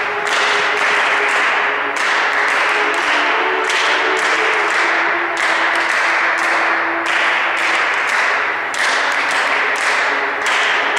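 String orchestra playing a percussive passage: many players tapping in rhythm make a dense, steady clatter that renews about every second and a half, over faint held string notes.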